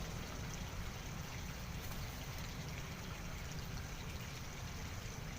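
Flowing river water, a steady rushing with a low rumble underneath.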